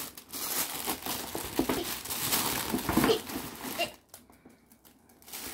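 Plastic bag and gift wrapping crinkling and rustling as a present is pulled out of a large plastic bag, stopping abruptly about four seconds in.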